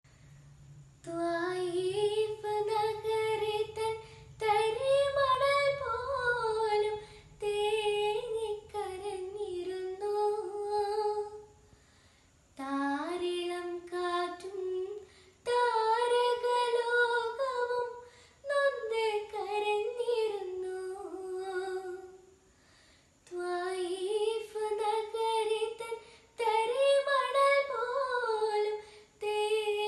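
A girl singing a Malayalam song solo and unaccompanied, in long melodic phrases with short breaks for breath, pausing briefly twice.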